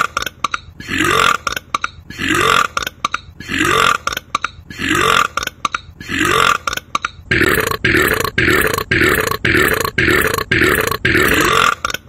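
A man's loud belch, edited into a steady repeating loop: about one belch a second, then twice as fast for the last few seconds.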